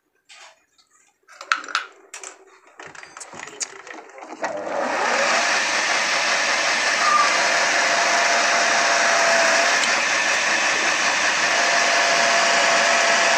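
A few clicks and handling knocks, then about four and a half seconds in an electric power tool starts and runs steadily with a faint whine.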